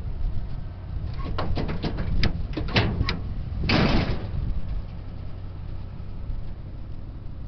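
2006 Ford F-250 Super Duty pickup tailgate being unlatched and lowered. A quick run of metal clicks and rattles from the latch and handle is followed, about four seconds in, by one louder rattling crash as the gate drops open.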